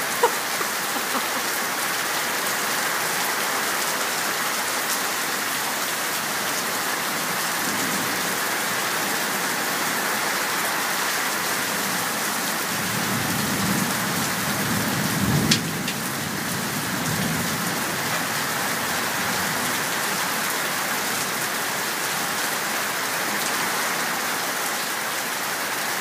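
Heavy tropical-storm rain falling steadily. About halfway through, thunder rumbles for several seconds, with a sharp crack at its peak.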